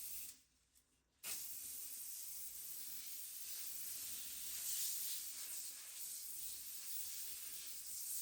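Steady hiss of a spray: a short squirt, then from about a second in one long continuous spray.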